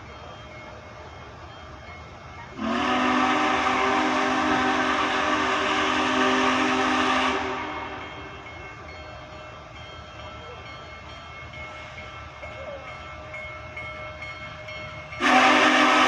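Union Pacific Big Boy No. 4014's steam whistle sounded for departure. One long chorded blast of about five seconds starts about three seconds in and fades out. A second blast starts suddenly near the end.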